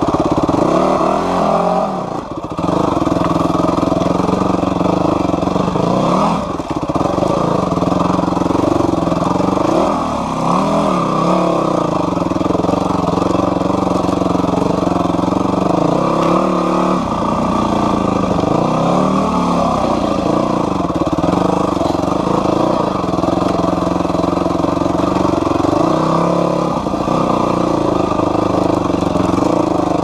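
Yamaha WR250F dirt bike's single-cylinder four-stroke engine running under load on rough ground, its revs rising and falling constantly as the throttle is worked, with short drops in level about two and six and a half seconds in.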